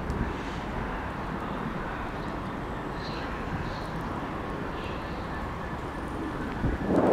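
Class 66 diesel locomotive approaching slowly, its engine running steadily, louder near the end.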